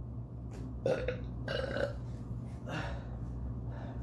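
A man belching several times in short bursts, his stomach upset after eating very hot sauce.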